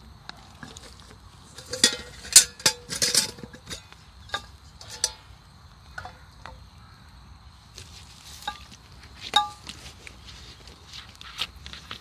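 Scattered short clinks and scrapes of metal camp gear being handled, a few with a brief metallic ring. The loudest cluster comes about two to three seconds in.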